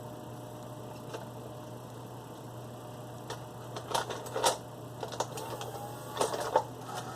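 Clicking and clunking of a Beta video recorder's mechanism being worked on by hand: a cluster of sharp knocks about four seconds in and another about six seconds in, over a steady low hum.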